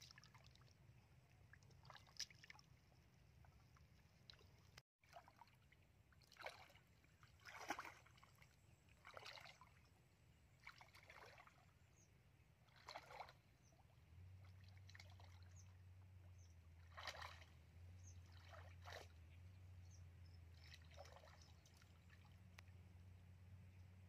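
Faint sloshing and splashing of shallow muddy water, in short separate bursts every second or two, as a wader moves through it and works a woven bamboo plunge basket fish trap into the water. A steady low hum sets in about halfway.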